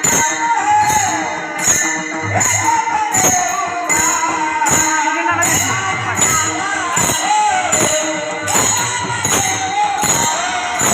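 Devotional bhajan singing: a solo voice holding a wavering melody, accompanied by small hand cymbals (tal) struck in a steady beat a little under two strikes a second.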